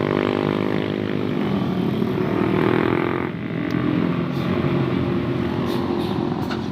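A motor vehicle engine running hard. Its pitch climbs over the first second and then holds steady, and there is a short dip about three seconds in before it picks up again.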